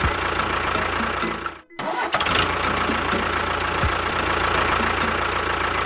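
A running engine sound with a low rumble. It cuts out sharply just under two seconds in and starts again a moment later.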